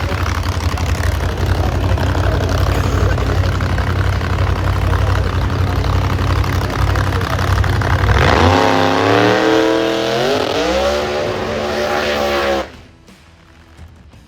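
Drag race car engine running loud and steady at the line, then launching about eight seconds in: the engine pitch climbs, dips briefly at a gear change and climbs again. The sound cuts off suddenly near the end.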